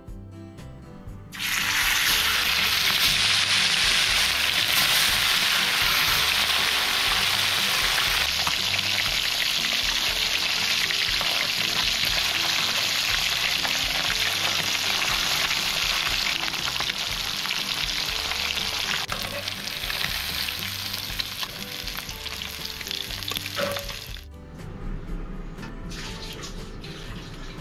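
Whole spice-coated fish frying in hot oil in a pan: a loud, steady sizzle that starts about a second in and cuts off sharply near the end, leaving only background music.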